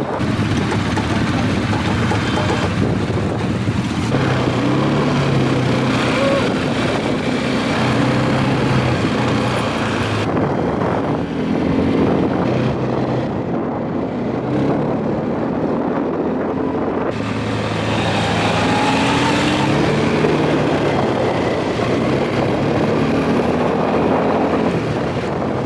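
Quad bike engine running under way, its note rising and falling as the throttle changes.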